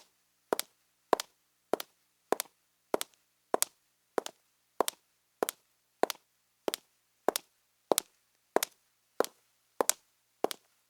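High-heeled shoes walking on a marble floor: a sharp, ringing heel click with each step, at an even, unhurried pace of about one step every 0.6 seconds.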